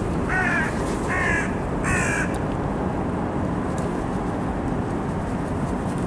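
Carrion crow cawing three times in quick succession, each harsh call under half a second long, over a steady low wind rumble.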